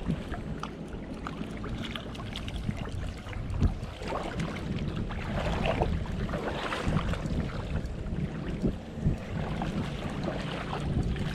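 Shallow river water splashing and sloshing in scattered bursts, over a steady low rumble of wind on the microphone.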